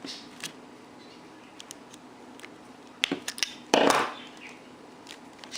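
Pliers and small plastic connector parts being worked by hand: scattered sharp clicks, a quick run of knocks about three seconds in, then a short louder rasp.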